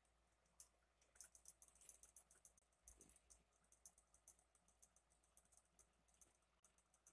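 Near silence, with faint, irregular high-pitched clicks and ticks that come in quick clusters.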